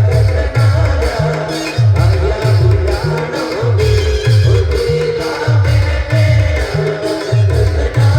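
Band music with a heavy beat of deep drum hits that drop in pitch, about two a second, under a steady melody.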